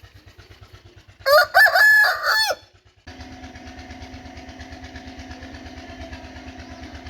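Aseel rooster giving one loud crow about a second in, lasting just over a second. Around three seconds in the sound cuts to a steady mechanical hum with a held low drone.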